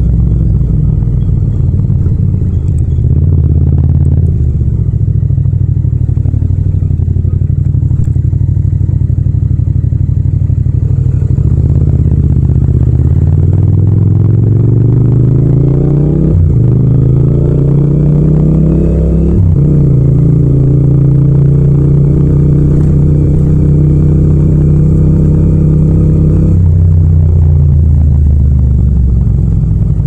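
Yamaha MT-07's parallel-twin engine with a Yoshimura exhaust, running at low road speed. Its note climbs twice with a short break between them, typical of revving through an upshift. It then holds an even cruise and eases off near the end.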